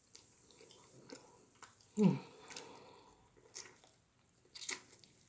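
Close-miked chewing of tender baked turkey wing meat, with soft wet mouth noises. A brief low vocal sound falling in pitch comes about two seconds in, and a sharp click near the end.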